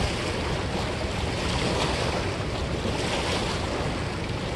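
Steady rush of fast, choppy river water mixed with wind buffeting the microphone.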